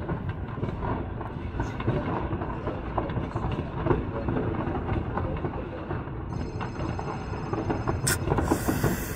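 Dense, continuous popping and crackling of many fireworks going off across the city, the bangs overlapping into a rumble. A sharper, louder crack comes about eight seconds in, followed by a brief hiss.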